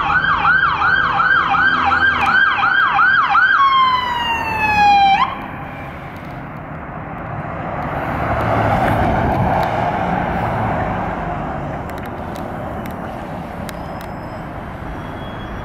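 Emergency vehicle's electronic siren yelping rapidly, about two and a half warbles a second, then one slow falling sweep before cutting off about five seconds in. After that, an SUV drives past, its engine and tyre noise swelling and fading.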